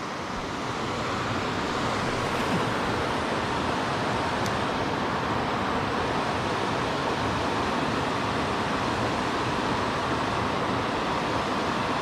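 Steady rush of river water pouring over a waterfall, a constant even roar with no break.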